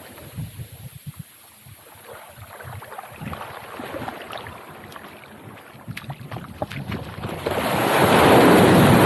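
Sea surf on a beach, with wind buffeting the microphone in irregular low thumps; near the end a wave breaks and washes in, swelling to the loudest sound.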